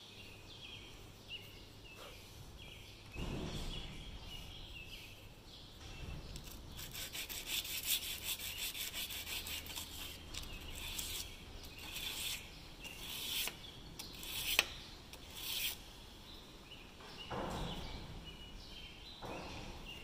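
A baler's twine knife being rubbed back and forth on emery cloth in quick, repeated gritty strokes, honing the paint off and sharpening the edge.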